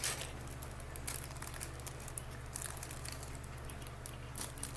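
Small plastic LEGO pieces clicking and tapping as they are handled, with some light rustling, over a steady low hum.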